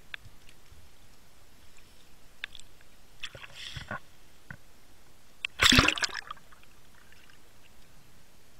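Water splashing and gurgling around a camera as a spearfisher breaks the surface and goes back under, the loudest splash a little past halfway, with scattered faint clicks in between.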